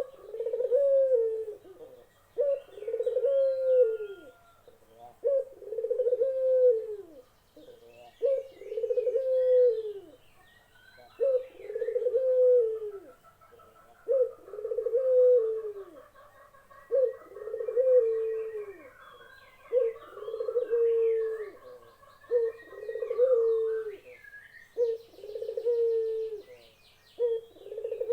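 Barbary dove (burung puter) cooing over and over, one low coo about every two seconds, each sliding down in pitch at its end. Fainter chirps and twitters of other small birds sound higher up.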